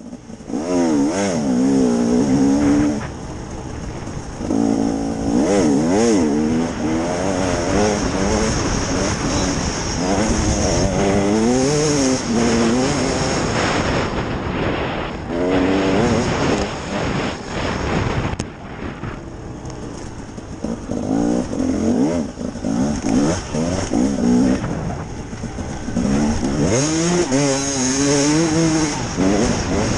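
KTM EXC 300 two-stroke enduro motorcycle engine under riding load, its revs rising and falling again and again with the throttle. It eases off briefly a few seconds in and again about two-thirds of the way through.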